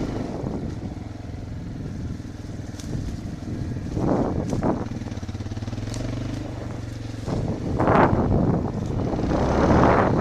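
Enduro motorcycle engine running at low revs, with short bursts of throttle about four seconds in and again near eight seconds, then picking up again toward the end with wind buffeting the microphone.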